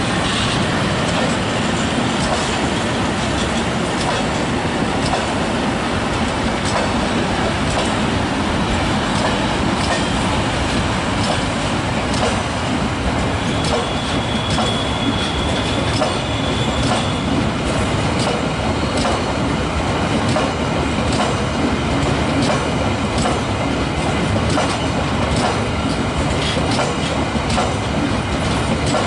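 A freight train of flat wagons rolling past, its wheels clicking steadily over the rail joints. A thin wheel squeal rises briefly about halfway through.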